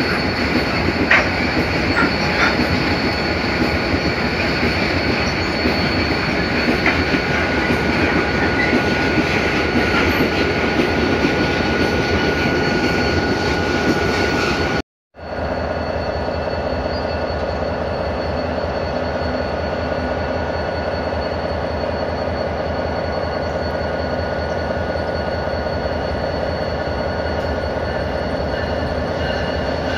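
Freight wagons rolling past on the rails with a steady wheel squeal and clatter. After a brief dropout about halfway through, diesel locomotives run with a steady engine hum.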